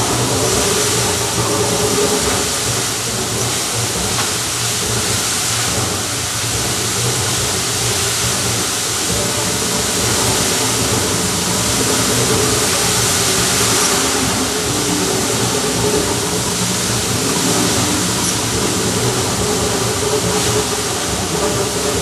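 Fountain water jets spraying and falling back into the basin: a steady hissing rush of water, with faint held tones underneath.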